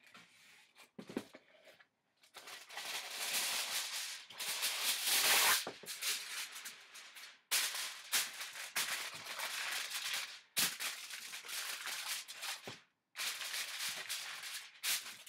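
Aluminum foil crinkling and crackling as a sheet is pulled from its box and pressed and smoothed over a metal baking sheet, in irregular bursts with short quiet gaps between.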